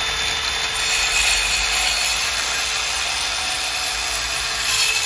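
DEWALT Atomic 20V MAX 4-1/2-inch brushless cordless circular saw (DCS571B) running steadily under load as its blade cuts through an old treated 2x4 at full depth.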